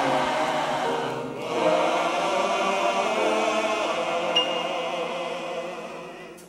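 Choral music: a choir singing long held chords that change every second or so, fading out near the end.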